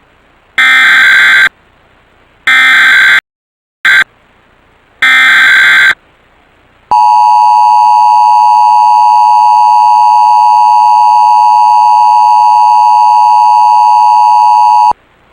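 Emergency Alert System broadcast: three bursts of SAME digital header tones, each about a second long with a short blip between the second and third, then the EAS two-tone attention signal sounding steadily for about eight seconds and cutting off. The tones announce a child abduction emergency alert.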